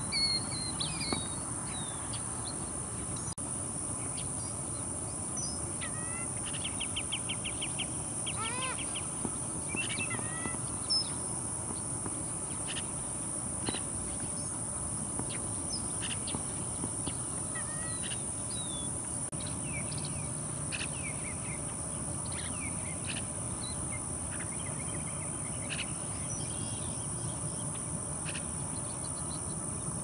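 Assorted wild bird chirps and short whistled calls over a steady, high-pitched insect drone, with a quick trill about seven seconds in.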